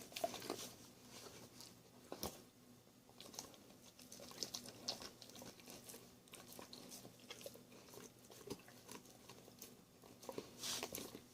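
Dog chewing and biting a piece of chicken: faint, irregular crunching.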